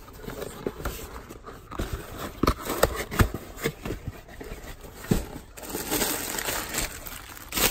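Cardboard shipping box being handled and opened, with plastic bubble wrap rustling and crinkling. Scattered sharp clicks and knocks run throughout, and the rustling is thickest near the end.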